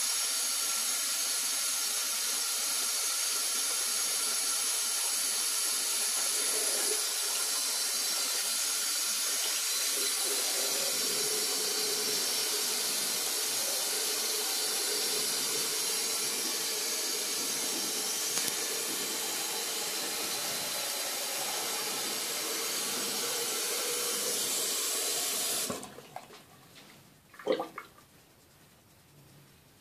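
Tap water running steadily from a faucet and splashing over a hedgehog held under the stream in a sink basin. The water stops suddenly about 26 seconds in, and a single short knock follows.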